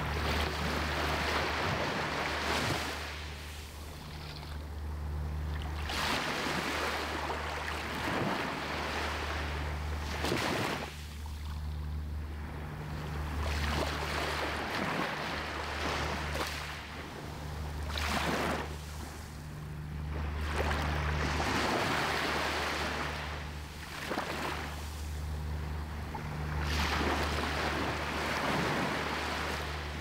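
Small sea waves washing up a sandy beach and drawing back, the foamy swash swelling and fading every few seconds, over a steady low rumble.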